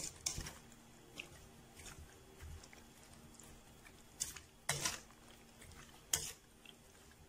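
Pieces of marinated pork stirred and turned in a metal mixing bowl with a spoon: soft wet squelching with a few short scrapes, the loudest a little under five seconds in and about six seconds in.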